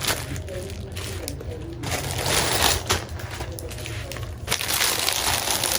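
Crunching, crinkling noises in irregular bursts, as of something being handled, crushed or rustled close to the microphone.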